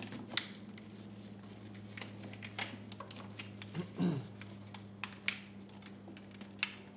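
Plastic clicks and taps of a tractor air-cleaner cap being fitted and turned onto its housing by hand, irregular and scattered, over a steady low hum.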